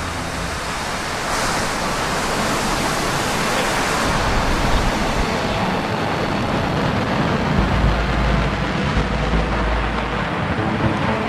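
Rocket engine firing, a dense, even rush of noise with a deep rumble that grows stronger over the last few seconds: the New Shepard booster's BE-3 engine under thrust.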